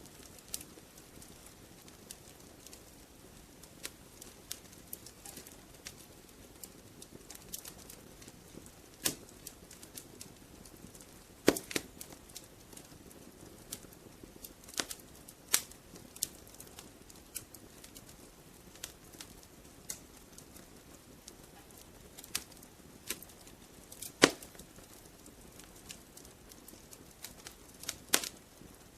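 Wood fire crackling in a fireplace: irregular sharp pops and snaps over a soft hiss, a few of them much louder, about twelve and twenty-four seconds in.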